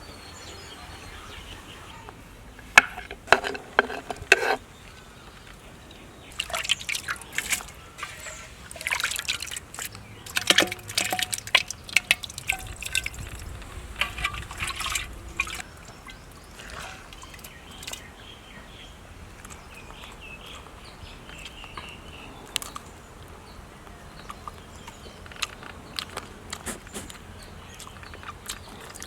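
Wet squishing and smacking of water-soaked rice being mixed by hand and eaten, in bursts of short squelches with quieter stretches between, busiest in the first half.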